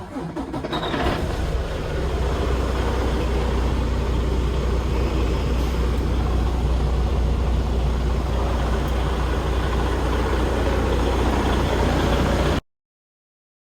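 Freightliner Cascadia semi truck's diesel engine starting up and settling into a steady idle, a sign that the no-crank, no-start fault is cured. The sound cuts off suddenly near the end.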